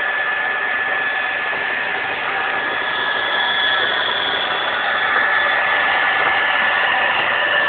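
Carpet-cleaning machine running steadily: a high whine over a rushing hiss, a little louder about five seconds in.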